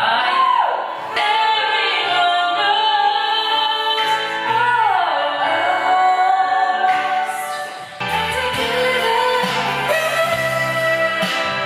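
A song with a woman singing the melody, her voice sliding between notes. A low bass line enters about eight seconds in.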